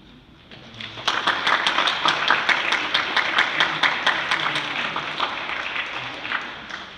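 Congregation applauding: dense clapping that swells in about a second in, holds, then fades away near the end.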